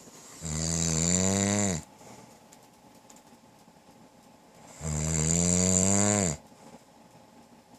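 A man snoring loudly in his sleep: two long snores about four seconds apart, each lasting about a second and a half, with a pitch that rises a little and then drops off as it ends.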